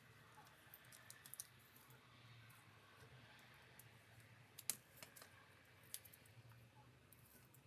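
Faint, scattered light clicks and taps, with a few sharper ones around the middle, over a low steady hum.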